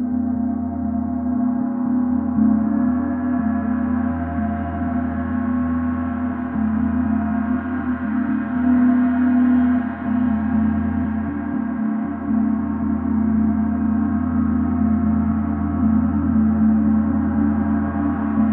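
A large gong ringing in a long, sustained wash of many overlapping tones, with a strong low hum beneath, swelling and easing in loudness.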